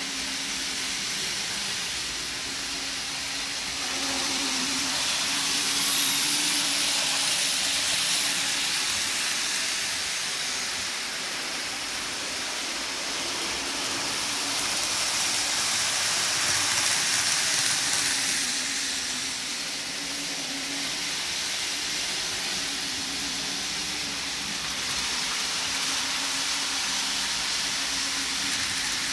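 N gauge model trains running on the layout: a steady whirring hiss from their small electric motors and wheels on the rails. It swells louder twice as trains come closer, over a faint wavering hum.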